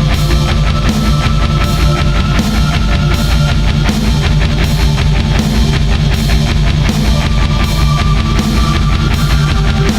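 Loud heavy-metal style music with a steady driving beat.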